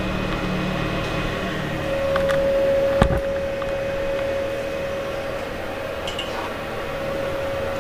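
RYU 450 inverter welding machine switched on and idling, its cooling fan running steadily. A steady humming tone comes in about two seconds in, and there is one sharp clack about three seconds in.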